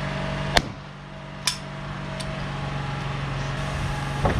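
Hammer striking a wooden wall stud at the bottom plate: a sharp blow about half a second in, a second about a second later, and a faint third. Another knock comes near the end.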